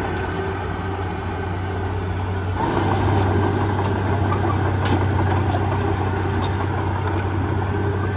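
Heavy diesel engine running steadily, working harder from about two and a half seconds in.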